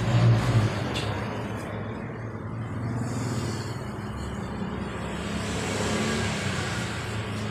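A motor vehicle's engine running with a steady low hum, its pitch edging up a little in the second half.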